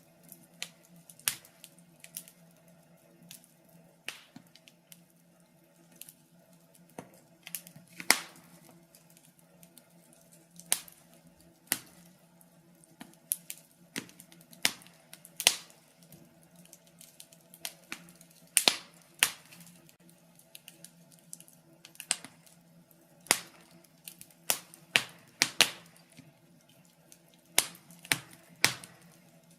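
Wood fire burning in a fireplace, crackling with irregular sharp pops and snaps, some clustered closely together, over a faint steady hum.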